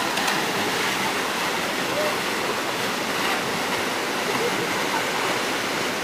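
Waterfall pouring into a rocky pool, a steady, even rush of churning white water.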